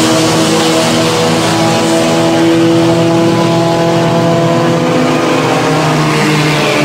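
Race cars' engines running at speed on the circuit, a loud, steady engine sound made of several overlapping engine notes.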